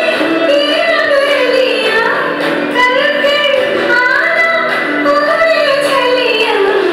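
Recorded Indian film song: a woman singing long, gliding, ornamented melodic lines over steady instrumental accompaniment.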